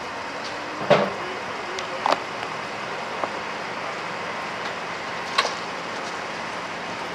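Four sharp knocks over a steady background hum: one about a second in, the loudest, then lighter ones about a second apart, and a last one about five and a half seconds in.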